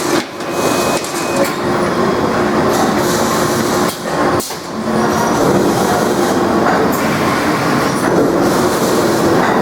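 CNC turret punch press running, a loud, dense, steady mechanical clatter with brief dips about a second in and again around four seconds.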